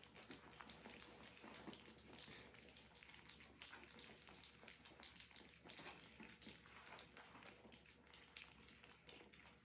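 A litter of three-week-old French bulldog puppies lapping and smacking soft food off rubber feeding mats: faint, rapid, wet clicks and smacks overlapping one another.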